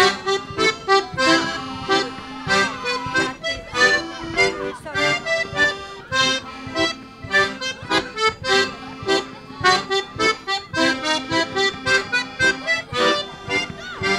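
Ensemble of piano and button accordions playing a lively polka together, a steady bouncing beat of short detached notes and chords.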